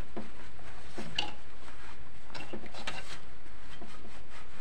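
Hands working at the neck of an old Sharp CRT television's picture tube, around its deflection yoke: a handful of irregular light clicks and knocks of plastic and metal parts.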